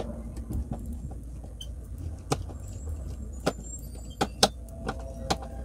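Screw being hand-driven into a cubby's side panel with a screwdriver: scattered sharp clicks and taps of the tool and screw, more frequent near the end, over a steady low rumble.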